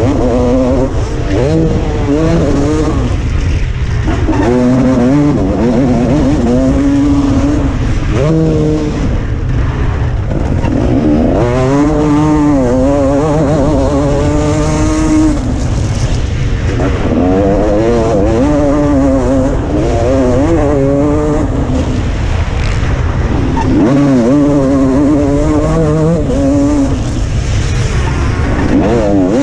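Motocross bike engine heard from the rider's helmet, racing at full effort: the revs climb in pitch and drop back over and over as the bike accelerates and slows along the track.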